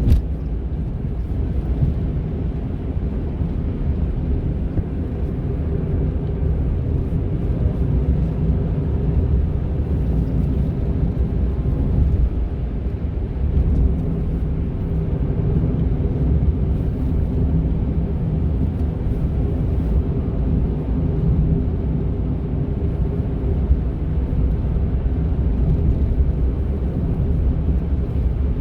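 Steady in-cabin driving noise of a high-mileage Honda N-ONE's three-cylinder engine and tyres: a low rumble with a faint steady hum running through it.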